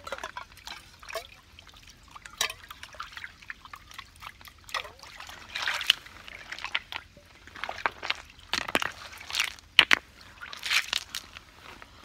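Water sloshing and pouring in short, irregular splashes, with a couple of sharp knocks about ten seconds in.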